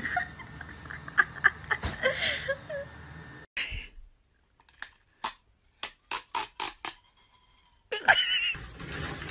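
A quick run of about ten sharp clicks over two seconds, with silence between them, after a stretch of scattered softer clicks.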